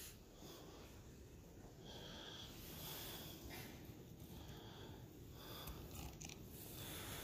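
Quiet room tone in a small, hard-walled room, with soft breathing close to the microphone coming and going every second or so, and a few faint handling knocks.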